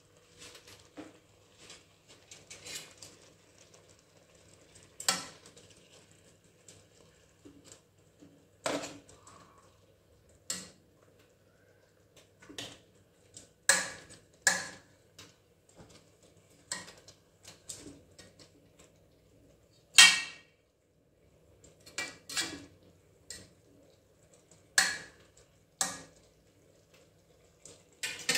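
Metal kitchen tongs clanking against the side of an aluminium pot while turning fried fish, in scattered sharp knocks with quiet gaps between, the loudest about two-thirds of the way through. Near the end the tongs clatter down onto a steel plate.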